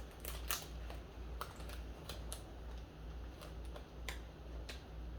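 Faint, irregular crisp clicks and crackles of someone chewing dry roasted crickets, with a steady low hum underneath.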